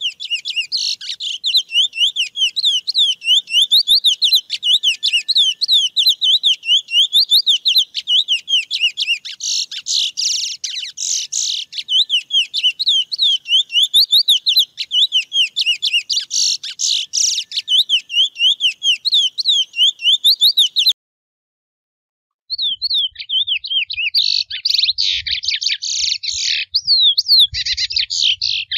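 Male chestnut-bellied seed finch (curió) singing its wild mateiro-style song: a fast, continuous warble of quick rising and falling whistled notes. About three-quarters of the way through, the song breaks off for a second and a half of silence, then resumes over a faint low rumble.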